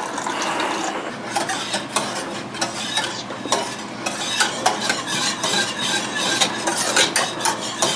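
A utensil stirring a thick, creamy mixture in a pan as it warms, with repeated light scrapes and clicks against the pan.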